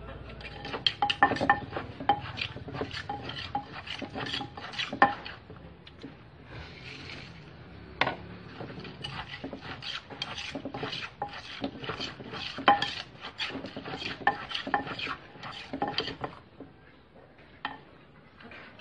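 Wooden pestle pounding salad vegetables in a mortar while a spoon scrapes and turns the mix, giving a run of sharp knocks about two to three a second. The knocking pauses briefly about a third of the way in, picks up again, and trails off near the end.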